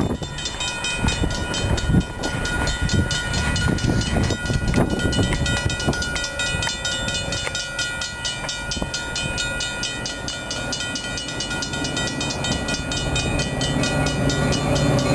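Railroad grade-crossing bell ringing with steady, evenly repeated strokes while the gates are down. The rumble of an approaching Metra diesel passenger train grows louder near the end.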